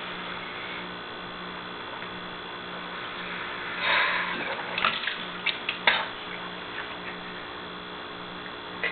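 Steady electrical hum. About four seconds in, a short rough gush of noise, then a few sharp clicks and knocks: a man vomiting into a sink.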